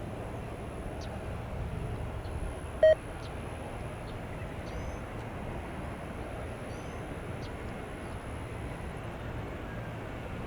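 Steady jet aircraft noise around an airport, with one short beep about three seconds in.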